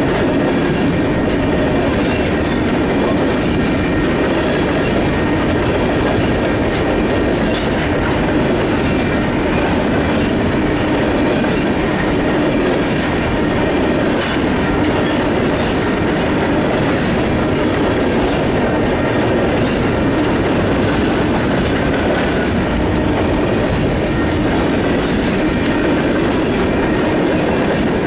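Union Pacific train's cars rolling past: a steady, loud rumble of wheels on rail with a light clickety-clack and faint thin wheel squeal.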